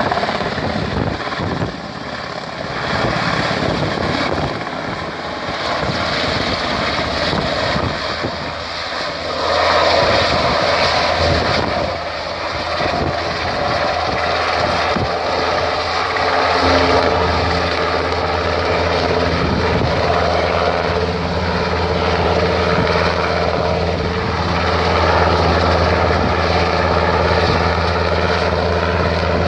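Large search-and-rescue helicopter running close by as it comes in and hovers low over the slope, rotor chop and turbine whine together; from about halfway through it settles into a steady low drone.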